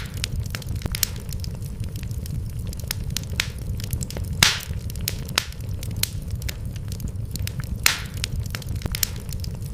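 Wood fire crackling in a fireplace: a steady low rumble with many small irregular snaps, and two louder pops about halfway through and near the end.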